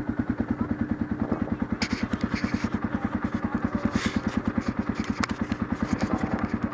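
ATV engine idling with a steady, rapid, even pulsing beat. A few light knocks and rustles from the handlebar-mounted camera being handled.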